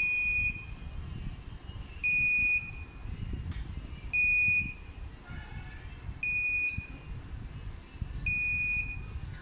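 Buzzer on an Arduino Uno board beeping a steady high tone, about half a second on, then off, five beeps about two seconds apart, switched by a simple on/off program loop to imitate an ambulance.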